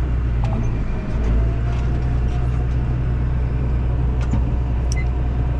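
John Deere 7810 tractor's diesel engine running steadily, driving a Woods rotary mower off the PTO, with a few light rattles and clicks over the drone.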